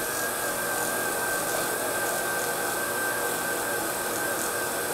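Foredom bench lathe running steadily with a steady high whine, a ring pressed against its cloth buff charged with bobbing compound to cut out the first layer of scratches.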